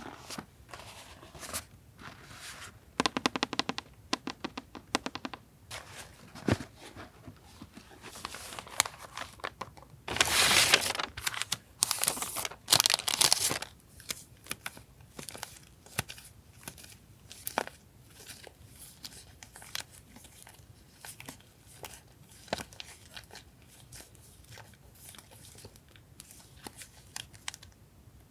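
Paper and packaging handled close up: crinkling, tearing and small taps, with a fast run of ticks around three to five seconds in and two louder bursts of tearing and rustling around ten and twelve seconds in.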